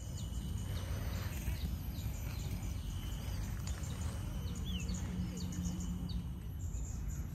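Many small birds chirping and calling over a steady low rumble, with a short low hum about halfway through.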